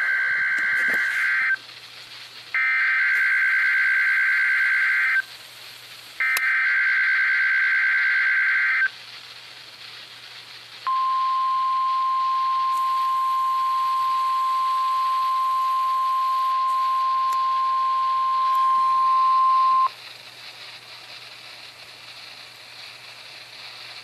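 NOAA Weather Radio Required Weekly Test alert played through a weather radio receiver. Three buzzy, warbling digital SAME header data bursts of about two and a half seconds each are followed by a steady 1050 Hz warning alarm tone held for about nine seconds, then a low hiss.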